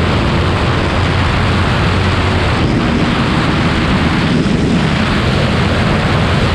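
Yamaha R3's parallel-twin engine running at about 140 km/h, heavily mixed with wind rush on the microphone, a loud, steady rumble and hiss.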